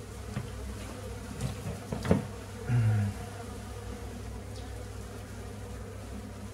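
Honey bees from a small, queenless, dying colony buzzing steadily as they fly about a window. There is a sharp knock about two seconds in and a brief louder low sound just after it.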